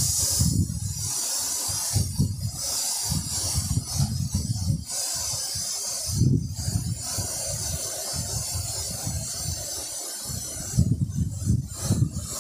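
Steady high hiss, with muffled low rumbles that come and go every second or two.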